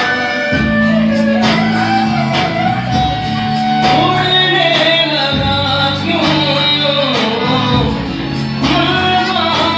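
Indian film-style dance song playing loudly: a singer's melody over sustained bass notes and a percussion beat.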